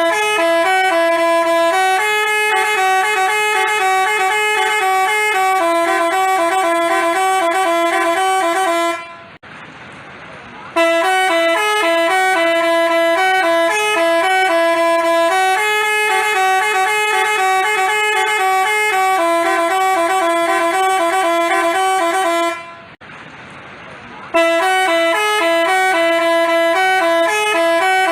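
Telolet basuri musical bus horn playing a stepping melody of held and repeated notes, broken twice by a short pause of about a second and a half.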